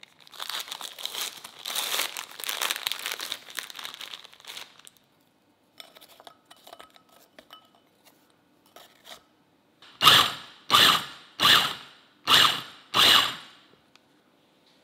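Plastic wrapper of a biscuit packet crinkling and tearing as it is opened, then biscuits clinking into a glass chopper bowl. Then an electric mini chopper runs in five short pulses, grinding the biscuits into crumbs; the pulses are the loudest part.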